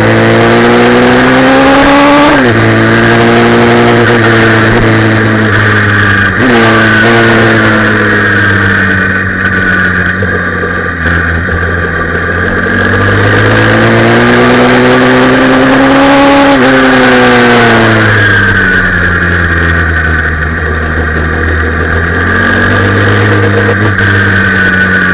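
Pit bike engine heard from onboard under hard acceleration, its pitch climbing and then dropping sharply at each upshift, about two and six seconds in and again about seventeen seconds in, before settling to a lower, steadier note.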